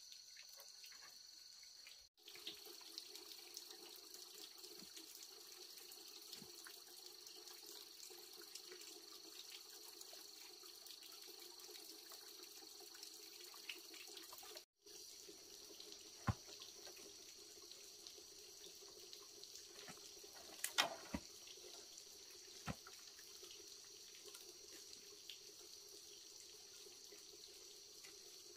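Faint, steady running water with a steady high-pitched hum above it. A few light knocks come through, and the sound drops out abruptly twice.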